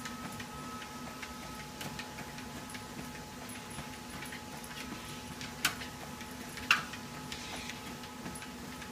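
Domyos treadmill running under a walking dog: a steady motor hum and whine with light, regular ticking. A little past halfway come two sharper clicks about a second apart.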